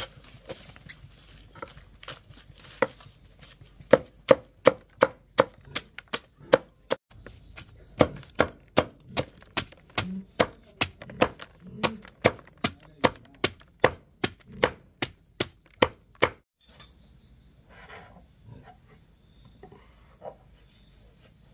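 Heavy cleaver chopping water hyacinth stalks on a thick round wooden chopping block: a few scattered chops, then a fast, even run of knocks at about two or three a second that stops about two-thirds of the way in. After that there are only a few faint knocks and a faint steady high hum.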